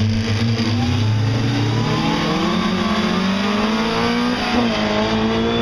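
Rally car engine accelerating hard, its pitch climbing steadily, with a brief dip at a gear change about four and a half seconds in before it climbs again.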